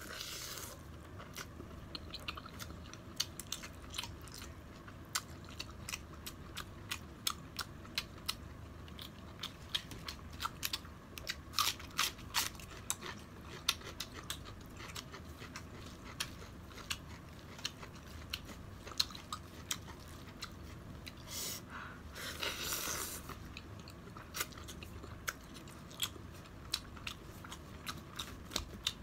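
Close-miked chewing of spicy instant noodles, with many small wet mouth clicks and smacks. A short, louder burst of noise comes a little over twenty seconds in.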